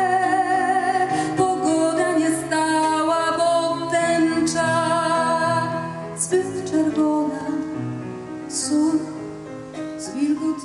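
A woman singing into a microphone with vibrato, holding long notes over a sustained instrumental accompaniment; the music grows softer about halfway through.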